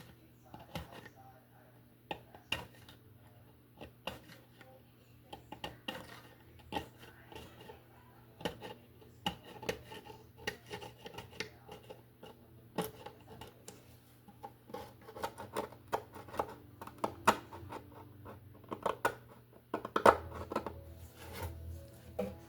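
Irregular clicks, taps and scraping of small hard tools and objects being handled on a workbench, growing busier and louder near the end, over a faint low steady hum.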